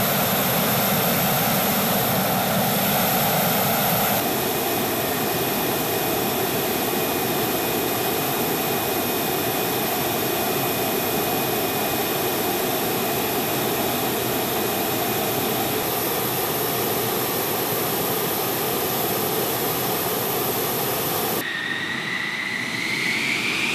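F-16 fighter jet engine running steadily at idle, a loud rushing noise with a high-pitched whine on top. Near the end the sound changes to a whine that rises in pitch.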